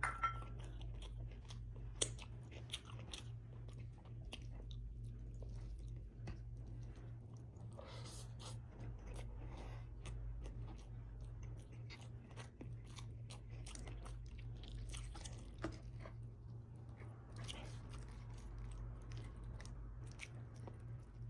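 Close-miked chewing and biting of beef ribs and rice, with many scattered soft clicks over a steady low hum.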